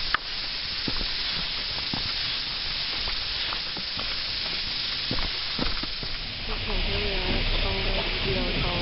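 A steady hiss with scattered soft knocks of footsteps on a dirt forest track. From about six and a half seconds in, a wavering pitched sound joins in.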